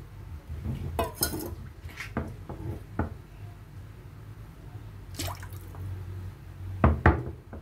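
Kitchen clatter over a wok of soup broth: a string of short clinks and knocks with small splashes, over a low steady hum. The two loudest knocks come close together just before the end.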